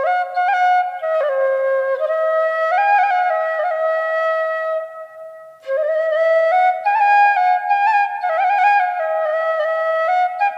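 Background music: a solo wind-instrument melody moving from note to note, with a long held note that fades away about five seconds in before the tune resumes.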